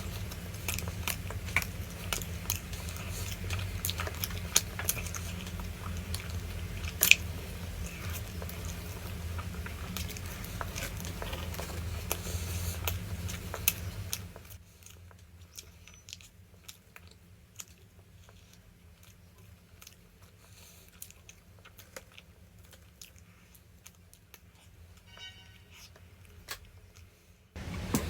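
A person chewing and biting food, with many short crunchy clicks over a low hum; about halfway through the hum drops out and the chewing clicks become fainter and sparser.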